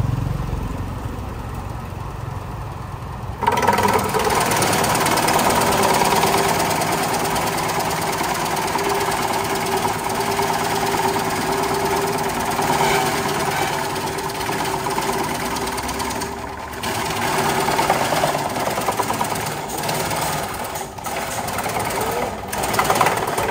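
Electric disc-type medicinal-herb slicer running and, from about three seconds in, its rotating blades chopping a woody stem fed in by hand: a dense, loud chopping rattle over a steady whine. The chopping drops off briefly a few times near the end as the feed pauses.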